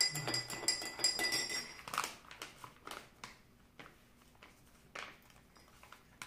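Metal spoon clinking against a drinking glass while stirring powder into water: quick ringing taps, thinning to a few scattered clinks after about two seconds and stopping near the end.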